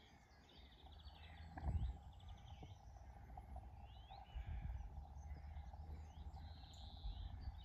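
Faint birdsong outdoors: scattered chirps and short trills over a low rumble, with a soft thump just under two seconds in.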